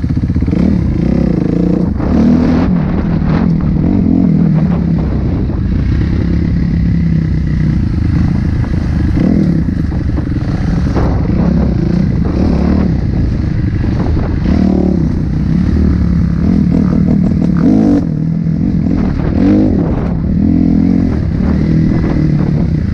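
Dirt bike engine running under load on a rough trail, heard from a helmet-mounted camera, its pitch rising and falling as the throttle is worked, with a few short knocks from the bike over the rocky ground.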